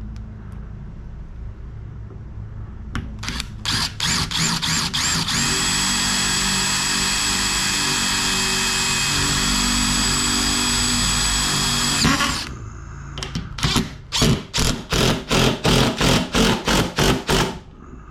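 Power drill: a few short trigger pulses, then running steadily at full speed for about six seconds before stopping. It finishes with a rapid string of short bursts, about three a second, over the last few seconds.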